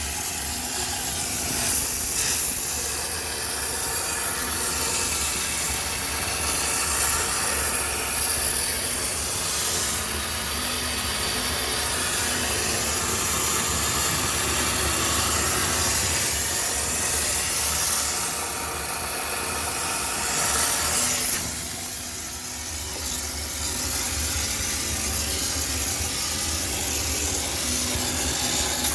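High-pressure steam sterilizer jetting steam into a washing machine: a steady, loud hiss over a low machine hum, the hiss changing and dipping briefly about two-thirds of the way through.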